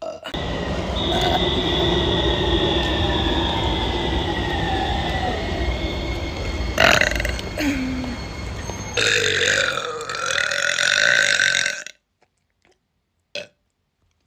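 One very long burp, a deep continuous belch lasting about eleven seconds, with a sharp break about seven seconds in. It goes higher and more strained over the last few seconds, then cuts off suddenly.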